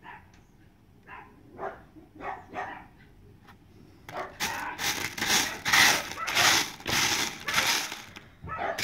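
A few light clicks of stones being handled, then, about four seconds in, a pan of gravel chips shaken back and forth on a sifting screen, the stones rattling and grinding in strokes about twice a second.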